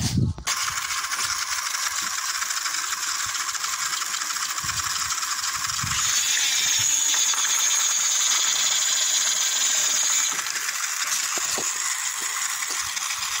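Small electric gear motors of homemade toy tractors running under load in a tug-of-war, a steady whirring rattle. From about six seconds in it grows louder and higher for about four seconds as the rear wheels spin in the dirt, then settles back.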